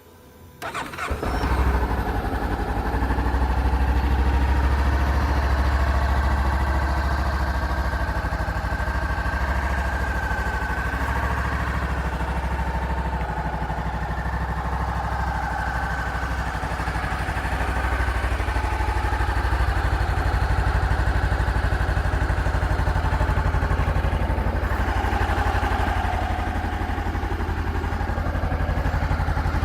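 Honda CBR500R's parallel-twin engine starting about a second in, then idling steadily.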